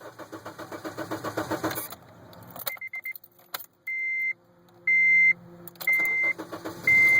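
2007 Honda Civic's 1.8-litre four-cylinder engine cranking on the starter for about two seconds, then catching and running unevenly. Through the running a high electronic beep repeats about once a second. The car starts only partly, with the handheld computer hooked up; the owner has a failing ECU or fuel-relay circuit in view.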